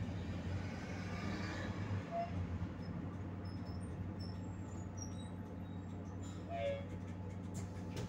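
Volgabus-5270.GH city bus heard from inside while driving: a steady low engine hum and road noise, with a few faint short squeaks.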